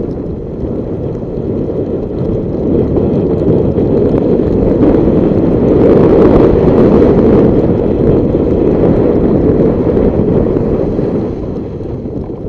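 Wind rushing and buffeting over the microphone of a camera carried at speed down a ski slope, swelling in the middle and easing off near the end.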